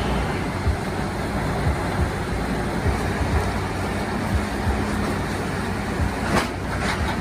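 CBI 6400 CT horizontal grinder crushing wood waste: a steady, dense mechanical noise with a heavy low rumble and scattered knocks.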